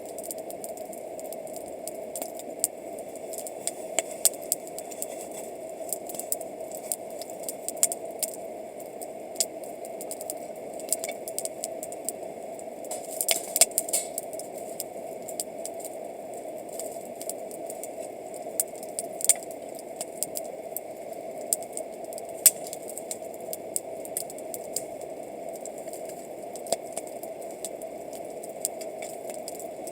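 Wood campfire crackling, with irregular sharp pops and snaps and a quick flurry of them about halfway through, over a steady rushing background.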